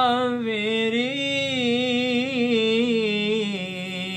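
A young man reciting the Quran in the slow, melodic mujawwad style. He holds one long ornamented phrase, its pitch wavering and turning, with no break for breath.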